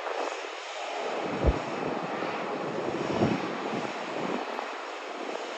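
Passenger airliner's engines running, a steady wide rushing noise that swells and fades slightly, with a short low thump about one and a half seconds in.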